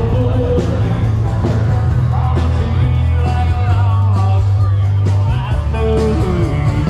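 Background music: a rock song with singing, guitar and a steady bass line.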